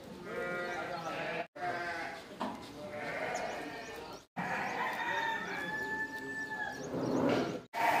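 Goats bleating, several calls one after another, with one long held call in the second half. The sound cuts out briefly three times.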